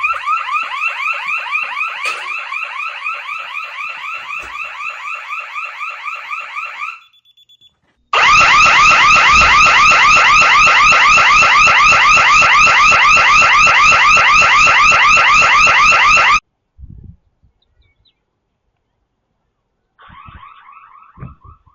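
Burglar alarm siren sounding in rapid repeating chirps, several a second, set off because the security system was still armed when the building was opened. It stops about seven seconds in, starts again much louder a second later for about eight seconds, cuts off suddenly, and comes back faintly near the end.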